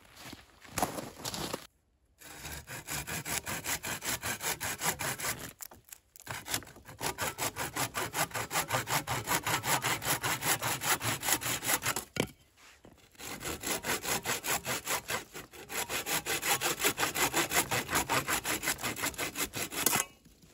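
A hand saw cutting through a pine branch with rapid, even back-and-forth strokes, pausing briefly twice before carrying on.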